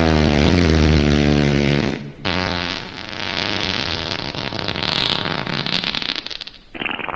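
Wet fart sound effects, one after another. First comes a long buzzing fart with a steady low pitch for about two seconds, then a longer wet, sputtering one, and a third begins just before the end.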